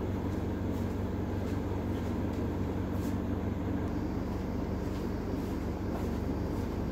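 Steady low hum with an even background hiss: room tone.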